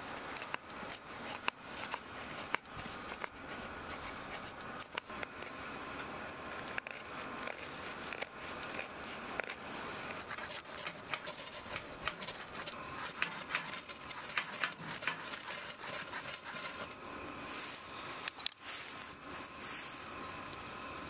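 A knife blade shaving a stick of dry wood into thin curls for kindling: a run of short scraping strokes, one after another. There is one sharper knock about eighteen seconds in.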